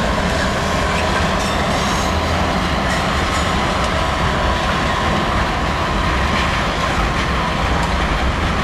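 Freight train of loaded hopper wagons hauled by a Class 66 diesel locomotive rolling past, a steady rumble of wheels on the rails.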